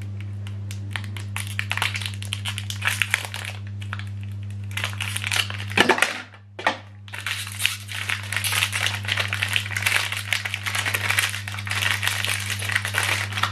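Plastic packaging of an HP 305 ink cartridge crinkling and crackling in irregular bursts as it is handled and pulled off, with a short pause about halfway, over a steady low electrical hum.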